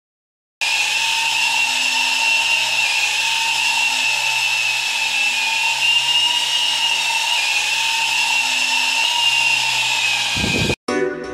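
Small electric motor and rotors of a homemade drink-can toy helicopter in flight: a steady high-pitched whine that wavers slightly in pitch. It starts suddenly about half a second in and cuts off sharply near the end.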